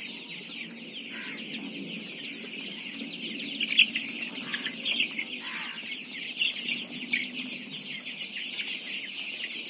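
A large batch of desi chicks peeping continuously in a dense chorus, with a few louder, sharper chirps standing out about four to seven seconds in.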